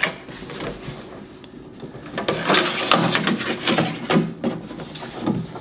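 An empty plastic fuel tank being turned and handled while a baling wire is worked through it: a run of scraping, rubbing and light knocks, busiest in the middle.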